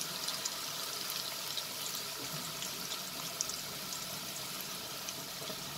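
Okra pieces deep-frying in hot oil in a steel kadhai: a steady bubbling sizzle with faint crackles. This is the first batch, freshly put into the oil on a high flame.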